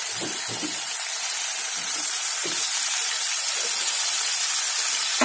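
Steady sizzling hiss of potatoes and spice paste frying in oil in a pan as the water added to the masala cooks off, with a few faint soft taps.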